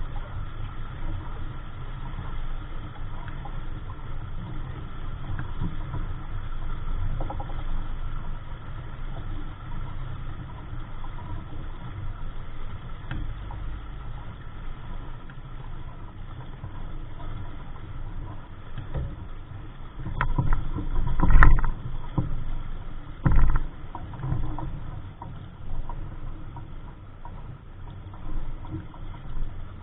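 Wind rumbling on the microphone and water noise aboard a small sailing dinghy under way. A cluster of knocks and thumps comes about two-thirds of the way through, the loudest a sharp knock.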